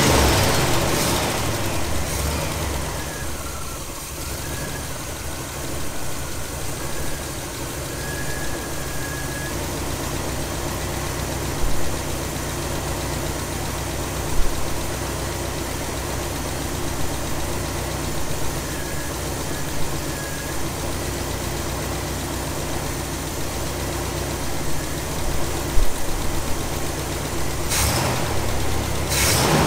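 1985 Oldsmobile Cutlass 442's V8 engine idling steadily, running again after 22 years parked, with a few louder bursts near the end.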